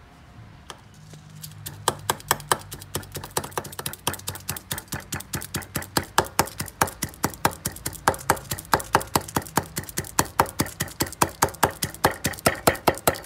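A cleaver chopping dried red chilies on a thick wooden chopping block: rapid, even knocks of the blade on the wood, about four or five a second, starting about two seconds in.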